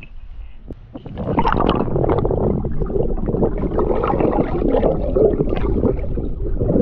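Muffled water churning and gurgling heard through a camera microphone underwater in a swimming pool, starting loud about a second in.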